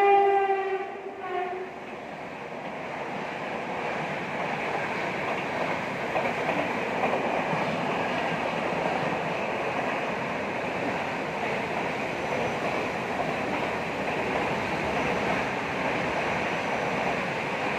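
Train horn sounding and cutting off about a second and a half in, followed by the steady running noise of a moving train.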